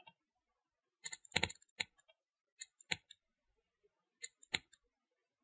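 Faint, sharp computer mouse clicks, about seven of them at irregular spacing, with a quick cluster about a second in.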